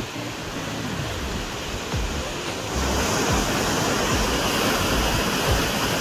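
Rushing water of Bells Rapids on the Swan River: a steady rush that grows louder about three seconds in.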